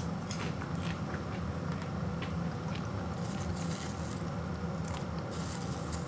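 Someone chewing freshly popped microwave popcorn, with light crunches, then a hand rummaging through the popcorn in a bowl toward the end. A steady low hum runs underneath.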